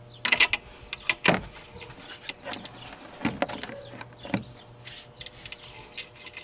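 Irregular metallic clicks and taps of a wrench on the 10 mm nut holding the battery cable to the alternator, the loudest in the first second and a half.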